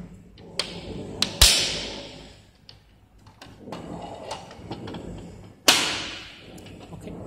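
Plastic cover and lock of a Smarlean soap dispenser being worked by hand: a few light clicks at the lock, then a loud plastic clack about a second and a half in as the cover comes free. Another loud clack comes near the end as the cover is snapped back onto the back plate, each clack ringing out briefly.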